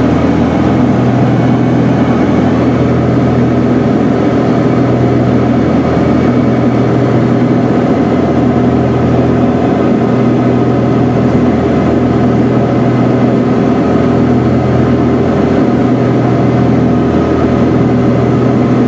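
Cessna 421's twin piston engines, geared and turbocharged Continental six-cylinders, running steadily in flight, heard from inside the cabin as a loud, even drone with a few held tones.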